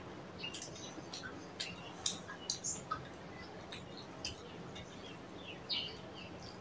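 Faint, scattered short chirps of birds, several a second at irregular intervals, over quiet room noise.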